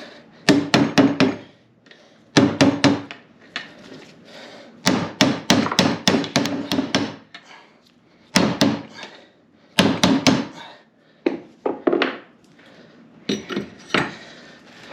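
Repeated hammer strikes on a hex driver used as a drift, tapping a bearing's outer race into a rear differential housing. The taps come as quick runs of several sharp blows, in about seven bursts with short pauses between them.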